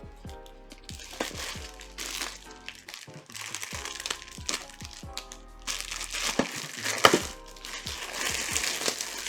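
Plastic packaging crinkling and crackling as a boxed doll is unpacked, with the loudest crackle about seven seconds in. Background music with a steady beat plays underneath.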